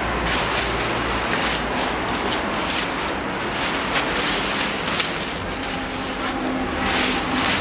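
Silver fabric motorcycle rain-and-dust cover rustling as it is pulled and spread over a scooter, with many small crackles through the rustle.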